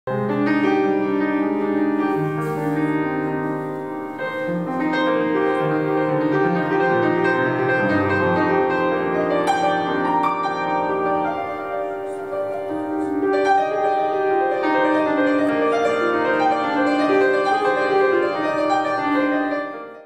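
Slow instrumental piano music, held chords and single notes with no voice, fading out at the very end.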